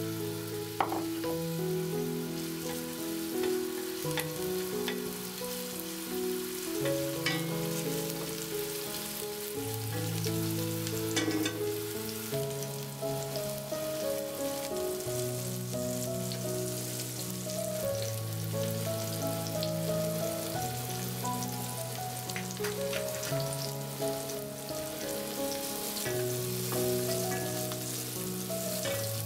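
Background music of slow, sustained melodic notes over diced onions frying in oil in a pan: a steady sizzle with scattered small pops.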